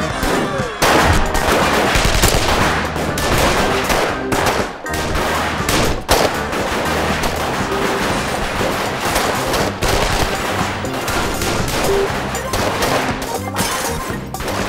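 Rapid gunfire, many shots in quick succession, over a tense music score.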